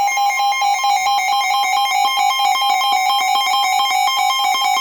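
Weather alert radio's alarm going off: loud, rapid electronic beeping that warbles between two pitches, signalling an incoming severe thunderstorm warning.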